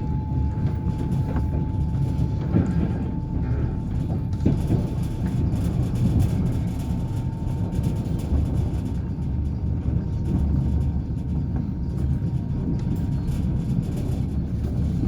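Passenger train running along the track: a steady low rumble of the wheels on the rails, with a few knocks early on from the wheels over rail joints, and a faint steady whine that fades out about ten seconds in.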